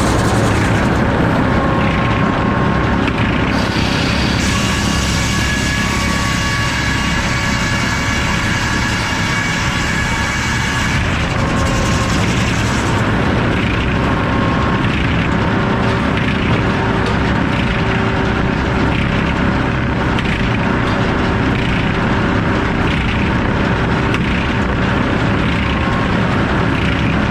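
Sawmill's circular saw with an F-pattern inserted-tooth blade running and sawing, a loud steady mechanical drone with held whining tones. A high hiss thins out about four seconds in and returns around twelve seconds.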